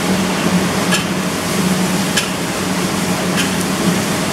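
Steady rushing noise of a gas wok burner, with metal ladles clinking and scraping against the wok about five times as fish pieces are stirred into curry sauce.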